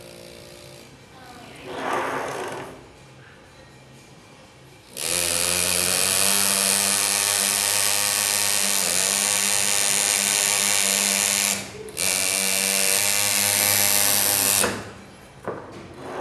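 Andu pneumatic engraving handpiece buzzing steadily as its graver cuts into a polished metal Harley-Davidson engine cover. It starts about five seconds in, stops briefly about seven seconds later, then runs on for a few more seconds before stopping.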